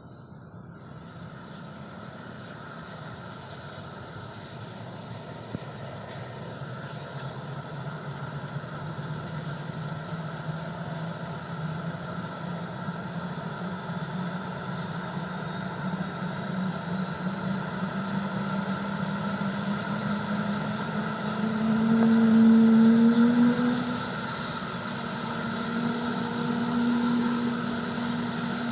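Turbine helicopter engine spooling up, its high whine rising steadily in pitch while the overall sound grows louder, with a louder surge near the end.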